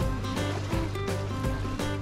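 Background music with a bass line, held melody notes and a steady drum beat of about two hits a second.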